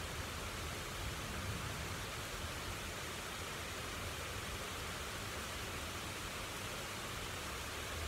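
Steady rain falling during a thunderstorm, an even hiss with no thunder clap.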